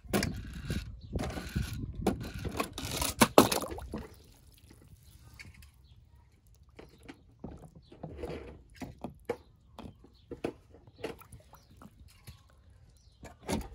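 Handling noise: small hard objects clattering and scraping, with a dense rustling, clicking stretch in the first few seconds and then scattered single clicks.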